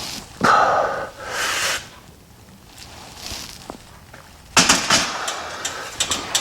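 A man with a head cold breathing hard, about four heavy breaths in a row. About four and a half seconds in, a run of metallic clattering and clicks sets in, like gym weights being handled.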